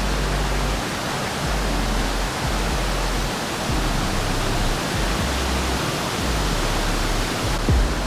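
Steady rush of a mountain-river waterfall, with the low bass notes of background music underneath and a brief low thump near the end.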